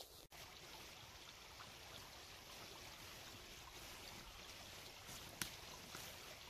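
Faint, steady running and trickling of a small woodland stream, with one brief faint click about five seconds in.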